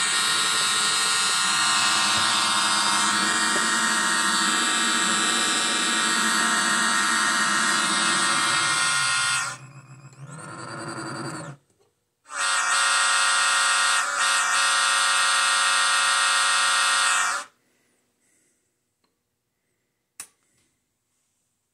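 Electronic diesel-locomotive air-horn effect from an MRC Sound & Power 9001 model-train power pack, played through a small loudspeaker: one long blast of about nine seconds, then after a short break a second blast of about five seconds. A single click near the end.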